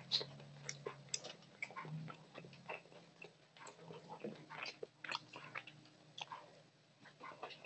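Close-miked eating by hand: many quick, wet mouth clicks and chewing, with fingers mixing rice and curry against a metal plate.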